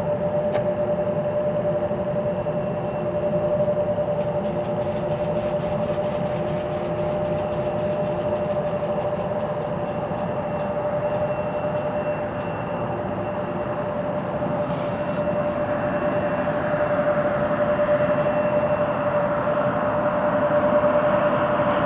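Jet aircraft engines running, a steady high whine over a rushing roar that grows a little louder toward the end.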